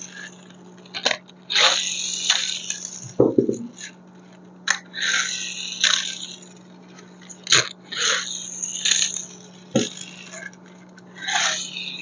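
Toy cars and their packaging being handled: repeated short scraping and rubbing sounds with a few sharp clicks and knocks, over a steady low hum.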